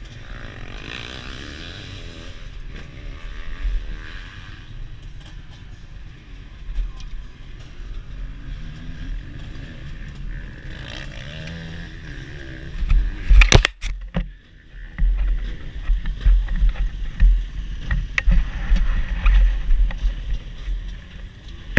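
Motocross bike engine running at low revs through a helmet-mounted camera, the pitch wavering a little. About two-thirds of the way through there is a sharp knock, and after it loud, irregular low rumbling on the microphone.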